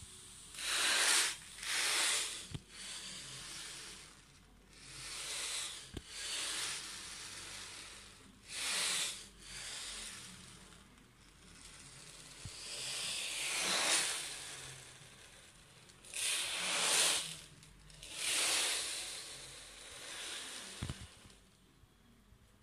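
A rushing hiss like surf, swelling and fading about ten times, each swell lasting about a second.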